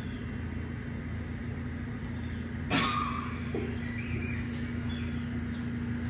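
Steady low rumble of background noise with a low hum, broken once by a single sharp knock a little under three seconds in.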